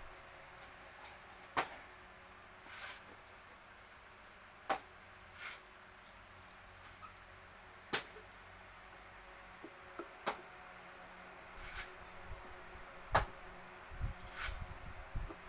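Sharp clicks and light taps of small hard parts, one every two or three seconds, over a steady high-pitched insect-like whine.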